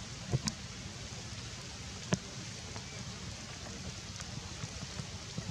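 Steady outdoor background hiss with a few faint, sharp clicks or snaps: two about half a second in and a louder one about two seconds in.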